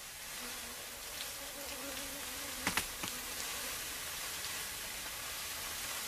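A swarm of Africanized honey bees (killer bees) buzzing as a mass, a dense hiss-like buzz with a faint wavering hum. Two short sharp clicks come about halfway through.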